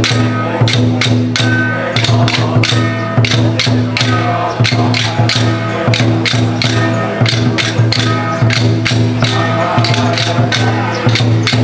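Taoist temple ritual music: a steady low drone with quick, regular percussion strikes over it.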